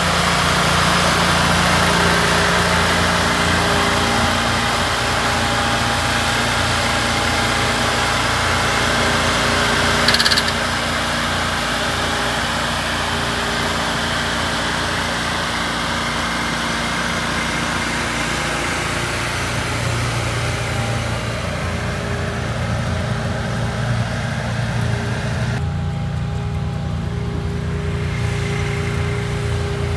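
Wilcraft ice-fishing machine's engine idling steadily, with a brief knock about ten seconds in.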